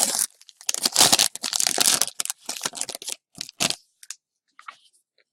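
Trading card pack wrapper crinkling and tearing as the pack is opened and the cards handled: loud rustling through the first two seconds, then shorter, quieter rustles that fade.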